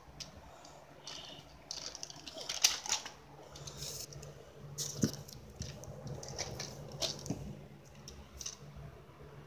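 Handling noise: scattered light clicks, taps and rustling as a phone and plastic toys are moved about on a bedspread, over a faint steady hum.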